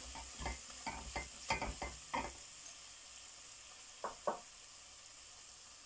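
A spatula stirring and scraping spiced tomato masala in a black pot, with a cluster of quick scrapes and knocks in the first two seconds and two more about four seconds in. Under it runs a steady faint sizzle of the masala frying in oil.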